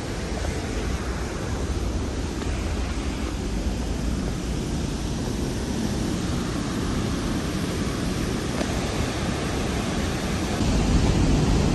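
Glacier-fed waterfall cascading through a gorge inside a mountain, a steady rushing noise of falling water. It grows louder, with a deeper rumble, near the end.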